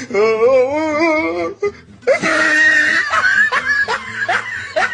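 A long wavering wail, then a run of short rising cries about twice a second.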